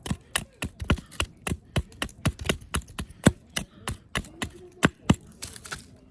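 Knife chopping food on a cutting board in quick, even strokes, about three to four a second, stopping a little after five seconds in.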